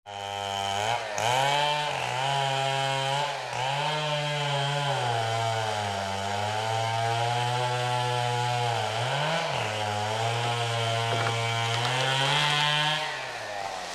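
Two-stroke chainsaw running flat out and cutting through a tree, its engine pitch dipping briefly several times as the chain bites into the wood and recovering each time. Near the end the pitch sags and the level drops.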